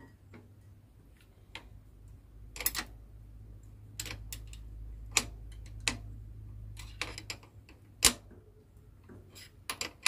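Irregular metal clicks and ticks as a bicycle pedal is threaded by hand into the crank arm, the loudest a sharp click about eight seconds in. A low steady rumble runs underneath through the middle.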